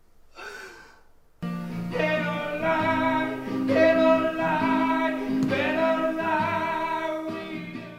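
A song starts about a second and a half in: singing over acoustic guitar.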